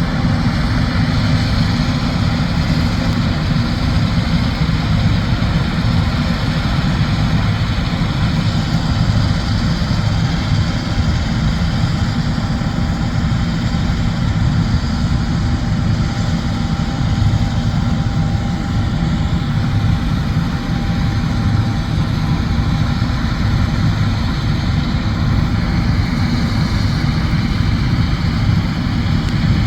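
John Deere S780 combine harvester running steadily while harvesting wheat, a constant heavy engine and machinery drone.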